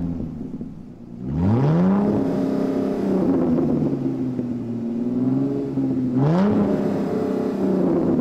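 Car engine accelerating. Its pitch climbs about a second in, holds steady, then climbs again a little after six seconds.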